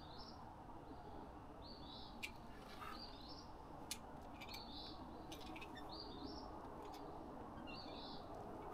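A bird repeating a short, high two-part call about once a second, over faint outdoor background noise, with a few faint clicks in between.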